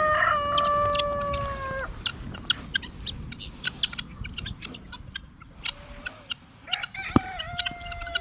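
Roosters crowing: one long crow in the first two seconds and another starting about seven seconds in, with short sharp bird calls and clucking in between.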